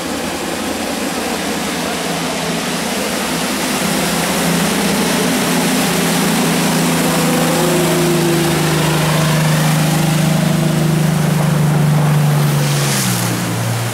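A small coast guard rescue boat's motor running at speed as the boat passes close, over the rush of its spray and wake. The engine grows louder, then drops in pitch about a second before the end as the boat goes by.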